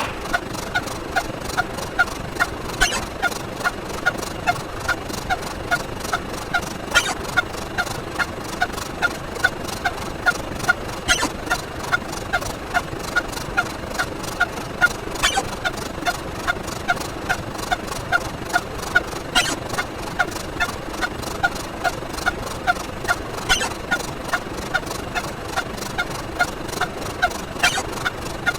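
A short honking, gobble-like sound effect repeated about twice a second, one play per step of the count. A sharper click sounds roughly every four seconds.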